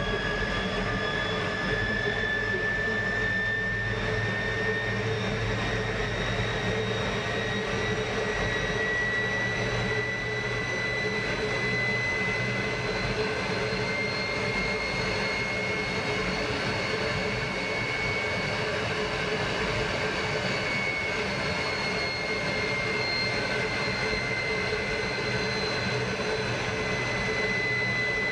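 MiG-15's centrifugal-flow turbojet running while taxiing, heard from inside the cockpit: a steady jet roar with a high whine that rises slowly in pitch and eases back a little after about twenty seconds.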